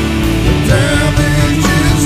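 Rock song with distorted guitars and a male singing voice, laid over the footage as background music.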